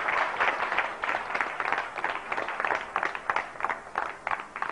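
Audience applauding, the clapping thinning to scattered claps near the end.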